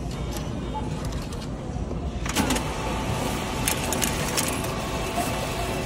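Self-checkout machine being fed cash, heard as scattered light clicks and handling noise over a steady store hum. The noise grows fuller about two seconds in, as a bill goes into the acceptor.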